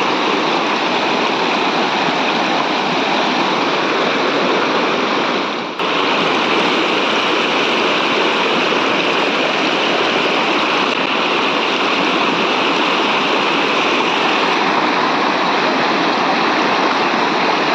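River water rushing steadily, with a brief dip about six seconds in.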